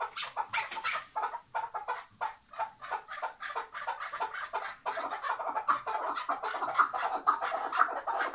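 Chukar partridge calling: a rapid run of short clucking notes that grows denser and louder about five seconds in.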